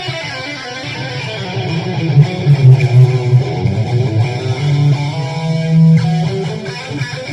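Guitar being played, strummed and plucked, with a few notes held near the end.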